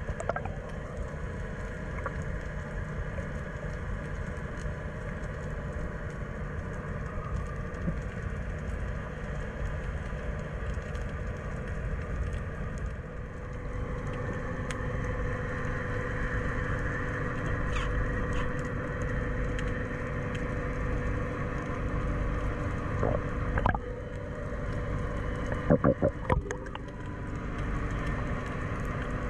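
Underwater ambience: a low rumble with a steady engine hum carried through the water, likely a boat motor, growing louder about halfway through. A few sharp clicks come near the end.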